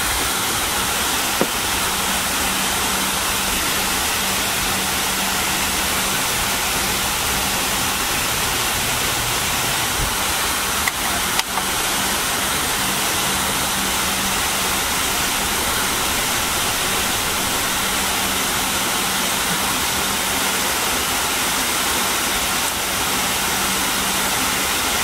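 Steady hiss of the cabin of a McDonnell Douglas MD-80 taxiing, its rear-mounted engines at idle, with a low steady hum beneath it. A few clicks come about eleven seconds in.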